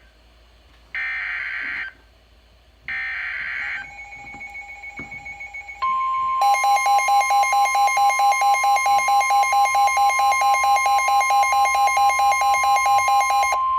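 Emergency Alert System SAME header data bursts, two one-second screeches, followed by a steady NOAA Weather Radio warning alarm tone. From about six seconds in, rapid loud beeping sounds over the steady tone and stops just before the end.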